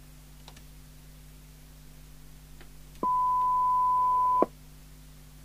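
Steady test tone heard through a Thunderpole T3000 CB radio's speaker, starting about three seconds in as the auto squelch opens on the signal generator's test signal. About a second and a half later it cuts off with a click as the squelch closes again. A faint low hum runs underneath.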